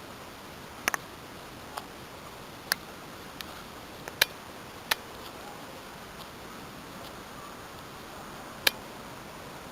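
Sharp single clicks at irregular intervals, about eight in all, over a steady background hiss.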